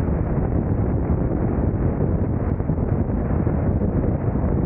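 Steady wind rush buffeting the microphone of a camera mounted on a touring motorcycle at highway speed, heaviest in the low end.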